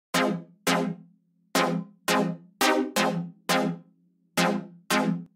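Electronic intro music: about nine sharp synth notes, each struck and dying away quickly, at uneven spacing over a low held note.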